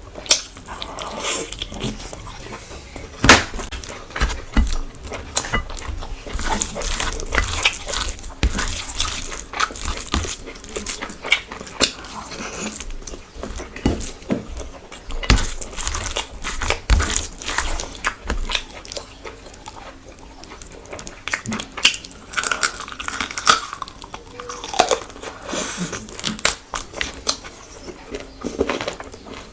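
Close-miked eating sounds: chewing with frequent irregular wet mouth smacks and clicks.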